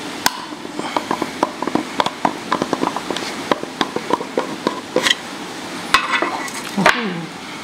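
Hands working open a metal watch tin: a string of small clicks and taps as fingers grip and pry at the lid, then a scrape about six seconds in as the metal lid slides off.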